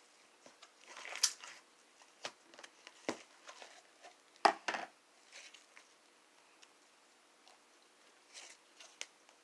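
Fluffy slime being squished and stretched by hand: irregular sticky clicks, pops and short crackles, the loudest about a second in and again about halfway through, then a few fainter clicks.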